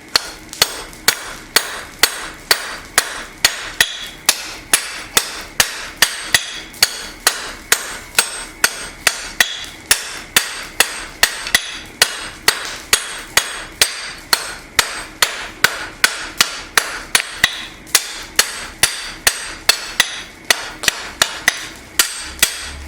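Blacksmith's hand hammer striking hot steel on an anvil in a steady rhythm, about two to three blows a second, each with a short metallic ring: drawing the end of a knife blank down to a point.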